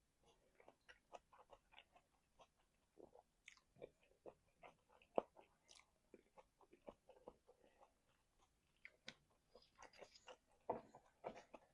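Faint, close-miked chewing of food, with irregular wet mouth smacks and clicks. One sharper click comes about five seconds in, and a denser run of smacks comes near the end.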